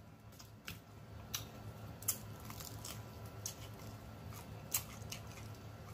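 Close-miked chewing and wet mouth smacking, with scattered sharp clicks of the lips and tongue.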